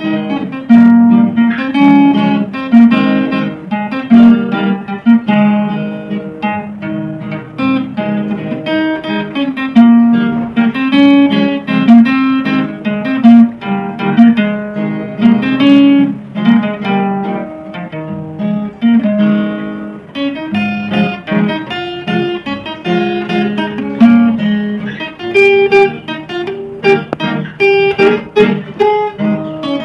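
Instrumental background music: a plucked string instrument, like a guitar, playing a busy run of quick notes over sustained low notes.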